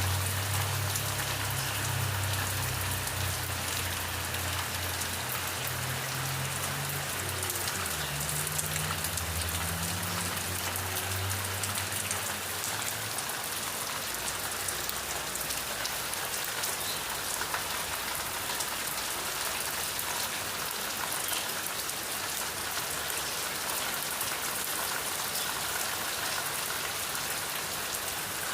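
Steady, dense rain pattering on a surface. A low hum runs underneath for roughly the first half, then fades out about twelve seconds in.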